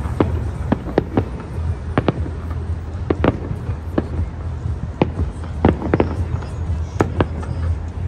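Fireworks display: aerial shells bursting in a rapid, irregular series of sharp bangs, a couple to a few each second, over a steady low rumble.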